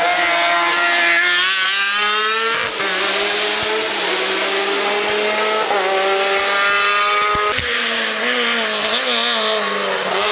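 Race car engine at full throttle accelerating up the hill, its pitch climbing and then dropping sharply at each upshift, about three gear changes in a row.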